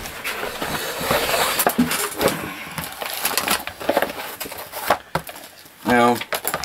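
Rustling and scattered light knocks and clicks as a leather mat is spread over a cloth-covered table and the multimeter's test leads are moved aside.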